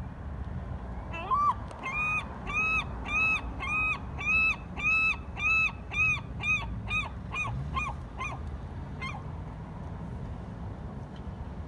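A large waterbird calling a long series of loud, evenly spaced honking notes, about two a second, that shorten and quicken toward the end before stopping about nine seconds in. A steady low rumble of wind and distant traffic lies underneath.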